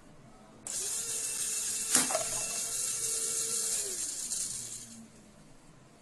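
Small battery-powered DC motor whirring with a high hiss, starting under a second in and winding down just before four seconds, with one sharp snap about two seconds in as the rubber band is released.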